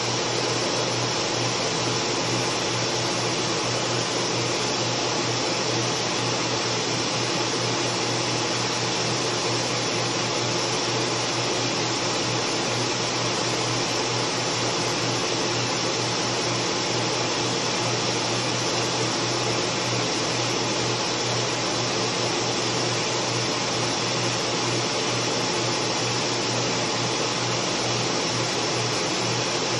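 Steady whoosh of a fume extraction blower pulling smoke away while a 60 W CO2 laser engraver burns into wood, with a steady low hum underneath.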